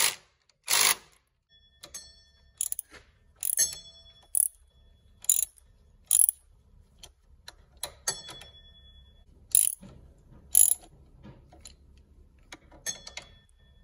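Hand socket ratchet clicking in short bursts, about a dozen strokes spaced irregularly, with light metallic clinks, as a brake hose bracket bolt is run down into the control arm.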